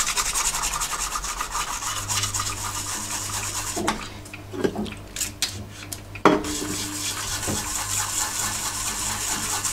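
A stiff-bristled brush scrubbing the solder side of a Commodore C128 power-supply circuit board, making a fast, scratchy rubbing that cleans off flux residue. The scrubbing stops about four seconds in, leaving a few light clicks, and starts again with a sharp click a little past six seconds.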